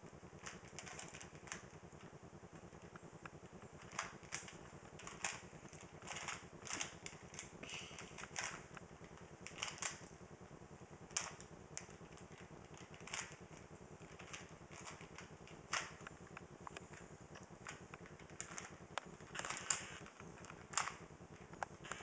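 A 3x3 Rubik's Cube being turned by hand: irregular clusters of light plastic clicks as its layers are twisted, with short pauses between runs of moves.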